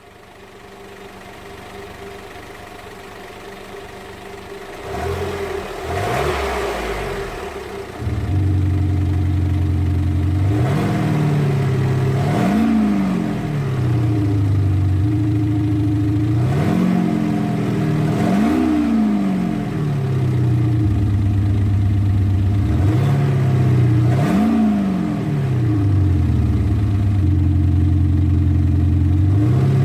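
A Kufatec Soundbooster Pro sound generator on a Smart fortwo 451 mhd plays a synthetic engine sound through its speaker, imitating a big multi-cylinder engine being revved. For the first eight seconds only the car's quieter engine runs; then the synthetic sound cuts in much louder, and the revs rise and fall about six times, with idling between the blips.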